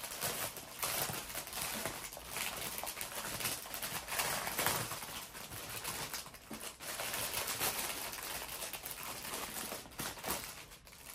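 Packaging crinkling and rustling as an item is unwrapped by hand, a continuous run of small crackles.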